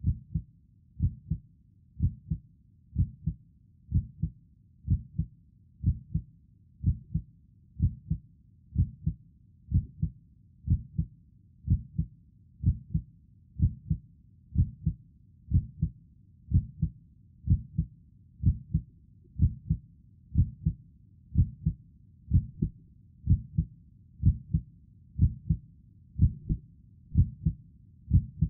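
Heartbeat: a steady, low double thump (lub-dub) repeating about once a second.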